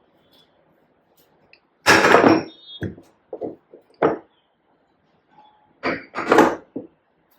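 Household knocks and clatter: one loud knock about two seconds in, a few lighter clicks and taps after it, then another cluster of knocks near the end.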